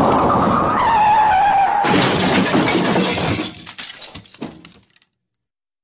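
Car crash: a high screech sliding down in pitch, then about two seconds in a sudden loud impact with shattering glass and breaking parts. Scattered knocks and clatter of debris die away over the next two to three seconds before the sound cuts off abruptly.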